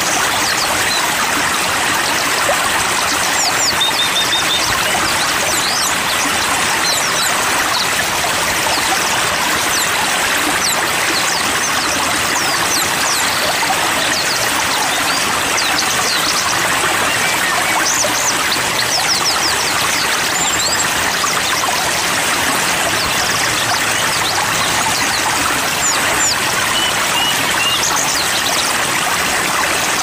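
Steady rush of flowing stream water with many small songbirds chirping over it: short, thin, high calls scattered all through.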